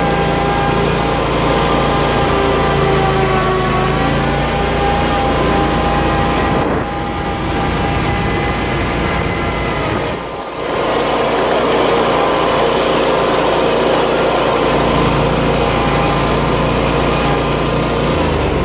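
Kawasaki FX1000V V-twin engine of a zero-turn mower running steadily at full throttle under a top-speed run, with a brief dip in level about ten seconds in.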